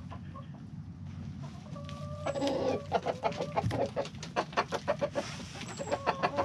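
A flock of chickens clucking close by. The clucking gets louder and busier about two seconds in, with short pitched calls then and again near the end, over a steady low rumble.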